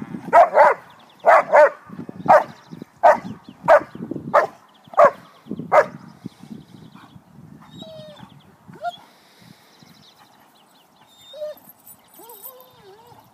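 A German Shepherd-type dog barking repeatedly, about eleven barks in the first six seconds, then falling mostly quiet apart from a few high, wavering whines near the end.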